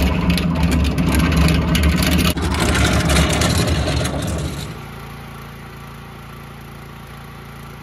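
Hard casters of a heavily loaded steel generator cart rolling over rough asphalt, a loud rumbling clatter. About four and a half seconds in it cuts off suddenly to a quieter, steady hum like a small engine running.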